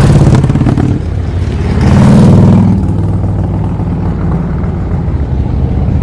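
Harley-Davidson V-twin motorcycle engine running loud through its exhaust, revved once about two seconds in, then settling back to a steady idle.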